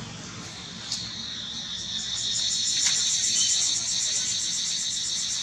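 Insect chorus: a steady, high-pitched pulsing trill that grows louder about two seconds in, with a single sharp click about a second in.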